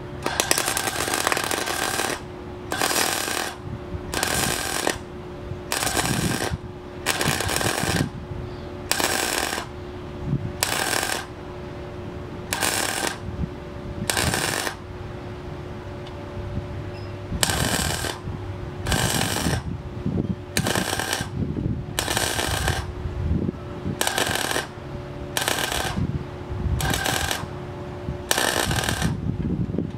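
MIG welder stitch-welding the steel sheet metal of a Rambler American's engine bay: about twenty short crackling bursts of half a second to a second each, with a pause of a few seconds around the middle. A steady hum runs underneath.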